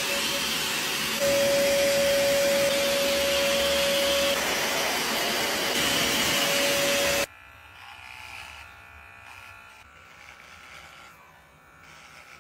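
Hose-fed pet grooming machine running: a loud, steady rush of air with a high whine over it, which stops suddenly about seven seconds in. After that there is a much fainter steady sound.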